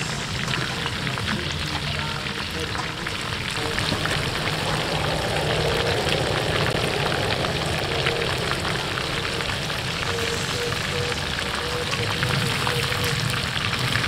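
Breaded chicken legs deep-frying in a wok of hot oil: a steady, dense crackling sizzle.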